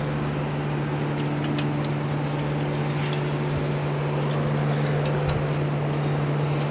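A steady low hum with light metallic clicks and ticks of a wrench on the engine as its crankshaft is turned by hand to find top dead centre on cylinder 1.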